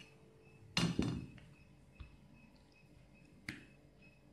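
A few scattered knocks and clinks of dishes and utensils on a kitchen table, the loudest a quick double knock about a second in.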